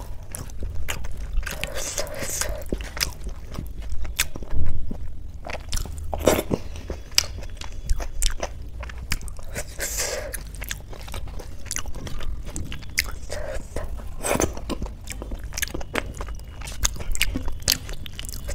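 Close-miked chewing of soft mashed rice and potato, with frequent sharp wet mouth clicks and smacks.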